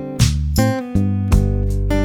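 Background music: strummed acoustic guitar chords, about two strums a second.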